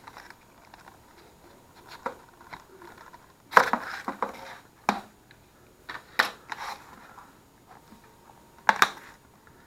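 A plastic Blu-ray case being handled and opened: a series of irregular sharp clicks and snaps with short rustles, the loudest cluster about three and a half seconds in and another pair near the end.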